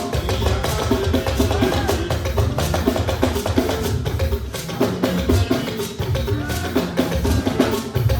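Band music with a busy, steady beat of drums and percussion under pitched instrumental lines.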